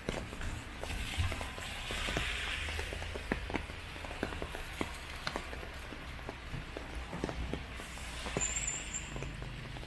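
Footsteps on a wet paved path, with rain noise around them and a low rumble underneath. A short high chirp comes near the end.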